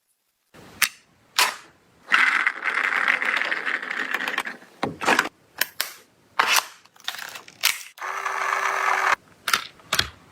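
Toy gel blaster clicking and firing: a dozen or so sharp snaps and clicks, irregularly spaced. Two longer stretches of steady noise come in between, the second with a steady hum in it.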